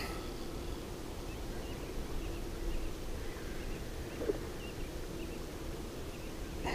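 Open-air river ambience: a steady low background noise with many faint, short bird chirps repeating throughout.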